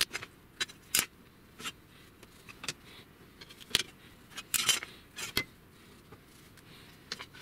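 A metal square and laminated plywood strips clinking and knocking on a table-saw top while holes are marked out in pencil. The clicks and knocks come about ten times at irregular intervals.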